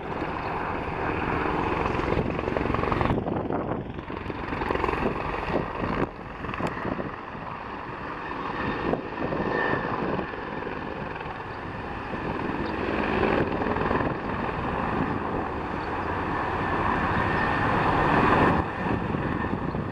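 Firefighting helicopters flying over a ridge, their rotors and engines making a steady noise that swells and eases a little.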